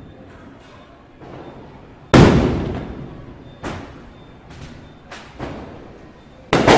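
Firecrackers bursting at scattered intervals, each bang trailing off in a long echo. The loudest comes about two seconds in, several smaller cracks follow, and a sharp double bang comes at the very end.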